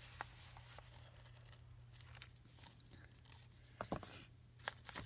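Faint rustling and crinkling of a paper napkin being handled, with a few light clicks and taps over a steady low hum.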